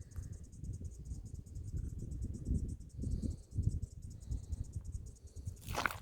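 Faint, steady, fast chirring of insects, likely crickets, over an uneven low rumbling noise. There is a brief louder noise just before the end.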